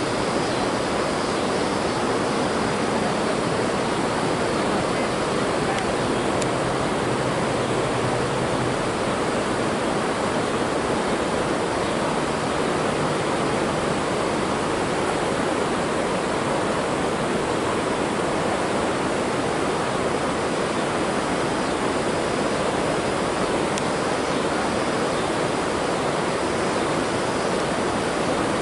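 Steady, unchanging rushing noise with no distinct events.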